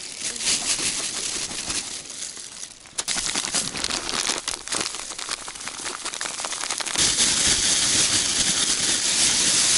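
Thin plastic carrier bag crinkling and rustling as dry red breadcrumb groundbait is poured into it from its packet and mixed in by hand, with many small crackles. The rustling gets louder and denser about seven seconds in, as both hands work the bag.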